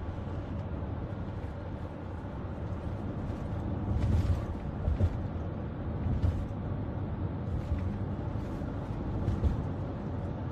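Steady low road and engine rumble inside a moving car's cabin, with a few louder low bumps.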